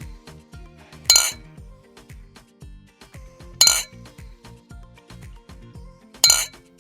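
Glass bottles clinking together, three sharp clinks about two and a half seconds apart, over background music. This is the clinking of bottles stored in a fridge, knocked together by the fridge's vibration.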